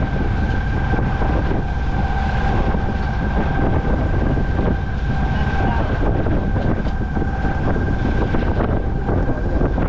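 Steady noise of a sailboat motoring under way: wind buffeting the microphone over a low engine rumble, with a faint steady high whine.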